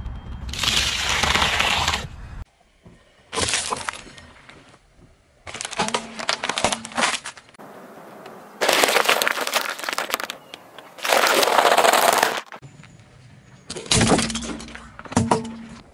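A car tyre crushing food on asphalt in about six separate bursts of cracking and crunching, each a second or two long and each starting and stopping abruptly. Among them are celery stalks snapping near the start and a bag of dry elbow macaroni crunching about halfway through.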